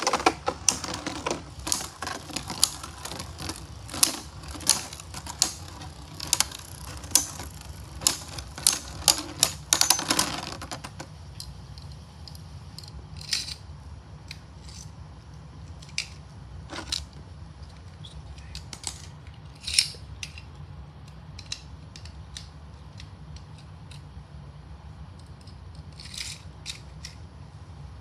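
Two plastic Beyblade spinning tops clashing in a plastic Beystadium: rapid, sharp clicking of repeated collisions for about ten seconds. After that only an occasional click sounds as the tops slow.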